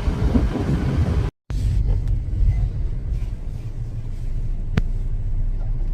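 Steady low rumble of a car driving, heard from inside the cabin. It cuts out completely for a moment about a second in.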